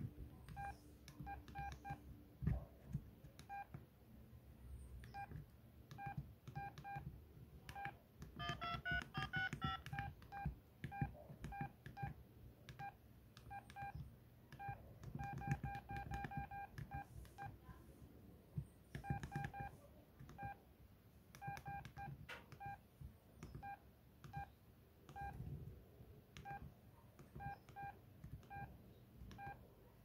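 Samsung SGH-T319 flip phone's keypad tones: short beeps, one for each key press as numbers are keyed in, mostly all at the same pitch and coming in quick runs. About nine seconds in there is a brief run of stepped, rising tones at different pitches.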